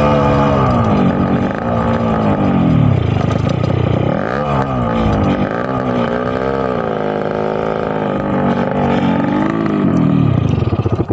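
Freshly restored Yamaha RX-King's two-stroke single-cylinder engine being revved again and again, its pitch falling and rising several times. The sound drops away abruptly at the very end.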